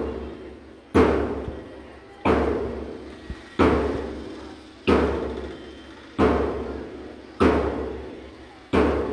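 A drum beaten in a slow, steady beat, about one stroke every 1.3 seconds, seven strokes in all. Each stroke rings out and fades before the next, keeping time for a group drill.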